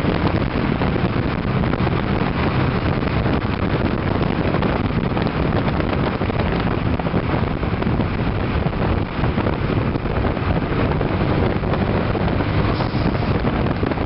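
Steady wind rush over the microphone and tyre and road noise from a camera mounted on the outside of a moving car, low beside the front wheel.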